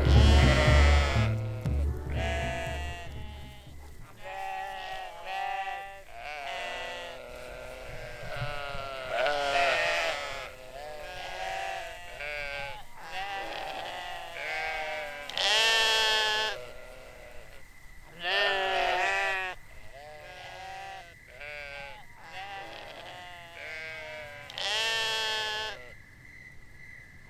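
Sheep or goat-like animals bleating over and over, a string of short wavering calls, several of them loud, with music ending in the first two seconds.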